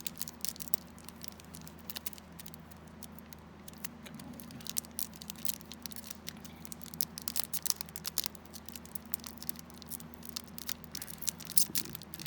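Crinkling and clicking of a foil booster-pack wrapper being handled and picked at while someone tries to tear it open. The crackles come irregularly over a steady low hum.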